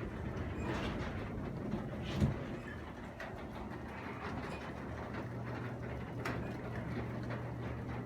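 Craftsman 3/4 horsepower belt-drive garage door opener running steadily with a low hum and rumble as it moves the door. A single thump sounds about two seconds in.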